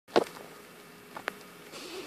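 Handling noise from a hand-held recording: a sharp knock right at the start, two small clicks about a second later, then a soft rustle near the end as a hand reaches in.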